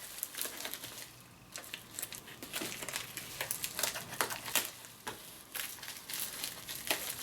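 Plastic packaging of a diamond painting kit crinkling and rustling in the hands, in irregular crackles as it is handled and opened.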